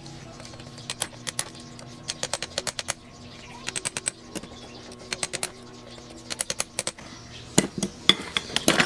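Socket ratchet clicking in short bursts as its handle swings back between strokes, tightening the crankcase bolts of a Yamaha DT125 two-stroke engine. A few louder metal knocks come near the end.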